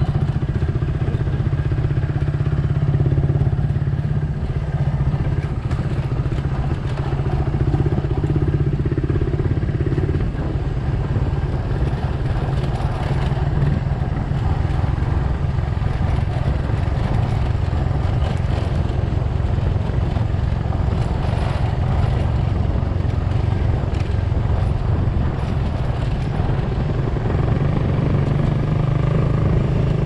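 A motor vehicle's engine running steadily throughout.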